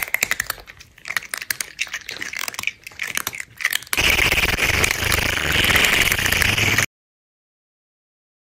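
Crunchy chewing and munching, a run of crackly bites for about four seconds. Then a steady slurp through a drinking straw for about three seconds, which cuts off suddenly into silence.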